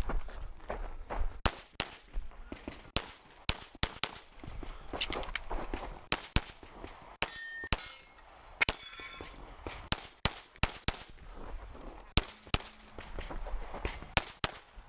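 Pistol fired rapidly at close range, mostly in quick pairs, with the shooter's movement between strings. Near the middle, steel targets ring briefly as they are hit.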